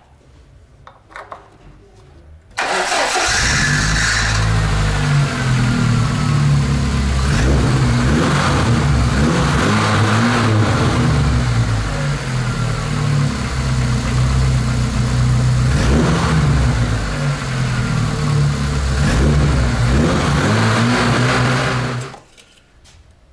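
Lada Niva's four-cylinder petrol engine starts about two and a half seconds in, idles steadily for about twenty seconds, then is switched off. It is the first run on fresh oil and a new oil filter after a diesel-fuel engine flush, kept short to circulate the oil and fill the filter.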